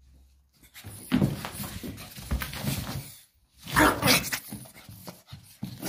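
A pug charging about in a wild play fit, making rough dog noises that come in loud bursts about a second in and again around four seconds in.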